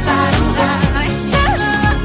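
Pop-style background music with a steady beat and a singing voice.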